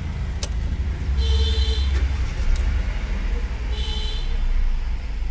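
Hyundai i20 engine idling as a steady low hum, with a sharp click just after the start and two short electronic beeps about two and a half seconds apart.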